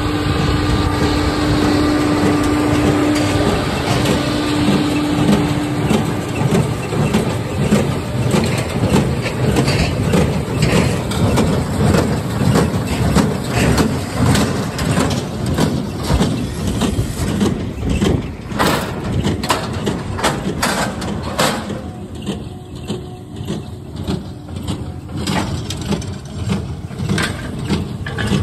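Farm tractor engine running, with a steady hum for the first few seconds and a run of knocks and clatter later on, then running a little more quietly near the end.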